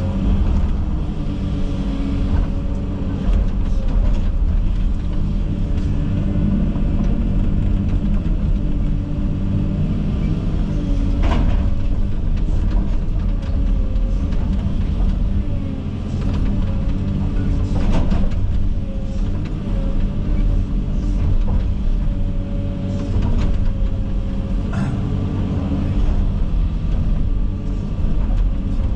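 Komatsu 360 excavator's diesel engine running steadily under working load with its hydraulics moving the arm, with a few sharp knocks about 11, 18 and 25 seconds in as brush and saplings are handled.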